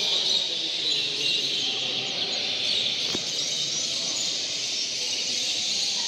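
A dense, continuous chorus of many caged canaries singing and chirping at once, with one sharp click about three seconds in.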